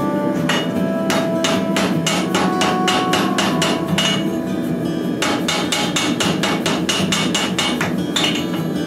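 Hand hammer striking a glowing, fluxed 5160-and-bandsaw-steel damascus billet on the anvil to set a forge weld. There are about three to four sharp blows a second, with a pause of about a second near the middle.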